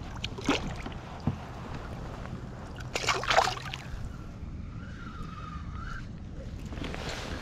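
Water splashing beside a kayak as a released snook kicks free and swims off: a small splash about half a second in, then a louder splash about three seconds in, over steady wind and lapping water.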